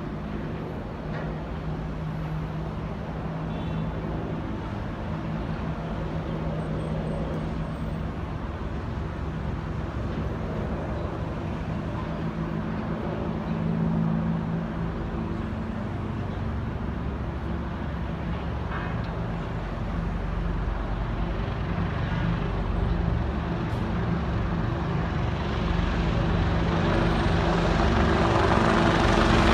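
Military helicopters flying in: a steady low droning hum over a wash of noise, which grows steadily louder over the last ten seconds or so as they approach.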